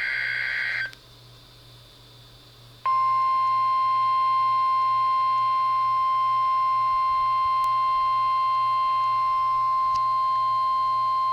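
The end of a NOAA Weather Radio SAME digital header burst, a dense burst of data tones, cuts off under a second in. After about two seconds of quiet hum, the loud, steady 1050 Hz weather radio warning alarm tone sounds through the receiver's speaker and keeps going.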